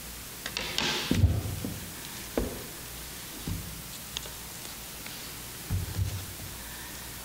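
Book pages and loose sheets of paper rustling as they are handled at a wooden lectern close to the microphone, with a rustling burst about a second in and a few soft knocks against the lectern spread through the rest.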